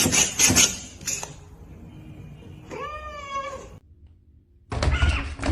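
A cat meowing once, about three seconds in: one call that rises and then falls, after a second of noisy knocks at the start.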